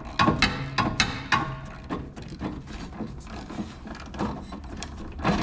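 Socket ratchet clicking in repeated strokes as it turns a rusted rear subframe bolt on a 1984 Pontiac Fiero, loudest in the first second and a half. The bolt turns without backing out: its nut is spinning loose inside the frame.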